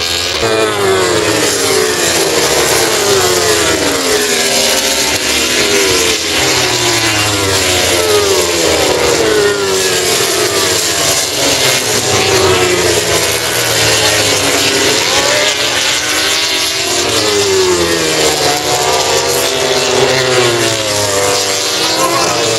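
Several MotoGP racing motorcycles with 1000 cc four-cylinder engines at high revs going through a corner, their engines overlapping as the pitch repeatedly falls and rises again.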